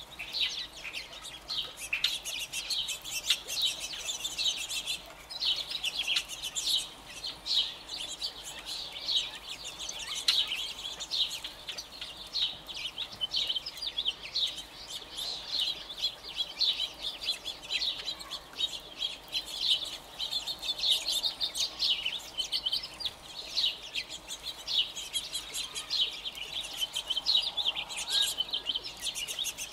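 A flock of birds chirping continuously, many short high chirps overlapping without a break.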